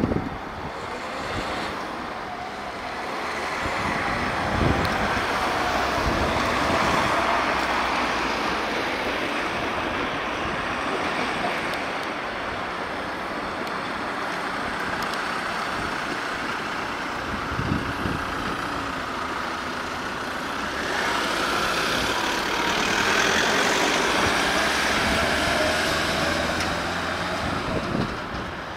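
Road traffic with heavy vehicles passing. Two louder passes swell and fade, one about four seconds in and one near the end.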